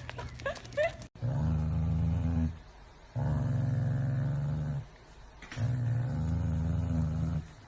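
An animal growling low three times, each growl held for about a second and a half with short pauses between.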